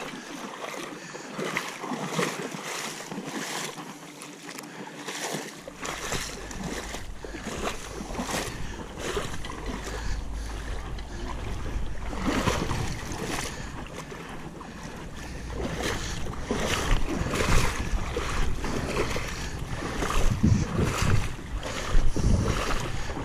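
River water rushing and splashing around a kayak running rough water, with louder, sharper splashes in the last several seconds.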